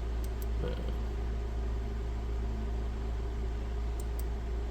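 Steady low electrical hum and room noise, with two faint pairs of quick clicks, one near the start and one near the end.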